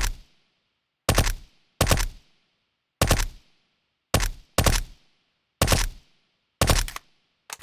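Suppressed HK MP5SD submachine gun firing short bursts of a few rapid shots, about eight bursts spaced roughly half a second to a second apart, each trailing off briefly.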